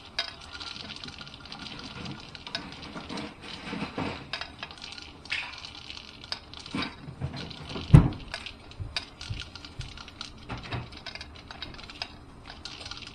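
Irregular small clicks, taps and light clatter of things being handled close by, with one loud knock about eight seconds in.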